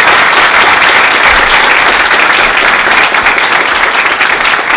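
An auditorium audience applauding: many hands clapping in a dense, steady patter.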